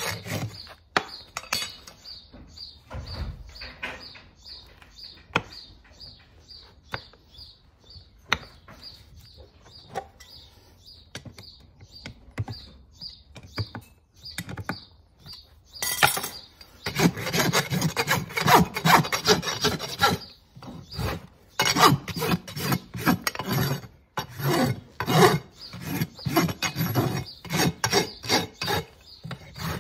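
A farrier's hoof rasp filed in rough back-and-forth strokes across a horse's hoof wall and nail clinches, finishing a newly nailed shoe. The strokes are light in the first half; after a sharp click about 16 seconds in they come loud and fast to the end.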